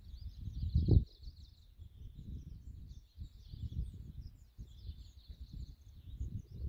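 Wind buffeting the microphone in gusts, with a strong gust about a second in. A continuous high chirping runs behind it.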